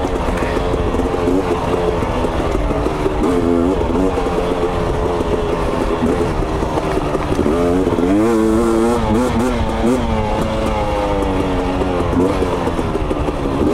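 2022 KTM 250 XC single-cylinder two-stroke engine under way on rough trail, its revs rising and falling with the throttle, with a run of quick up-and-down revs about eight seconds in. The engine is freshly tuned at its air bypass screw and power valve screw.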